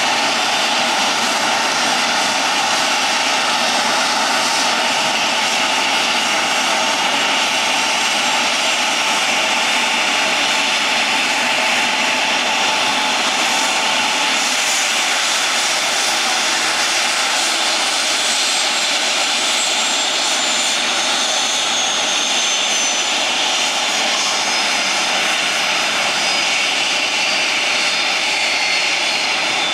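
Embraer E170's General Electric CF34 turbofan engines running with a steady jet whine and rush. In the second half a high whine falls steadily in pitch, as a turbine spooling down after shutdown does.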